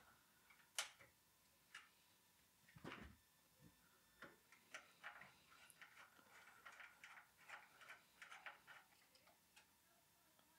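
Faint handling clicks and taps from work inside an open Power Macintosh Beige G3 case, as the hard drive is lifted and its cables are tugged at. There is one sharp click about a second in and a dull knock around three seconds in, then a run of small rattling clicks.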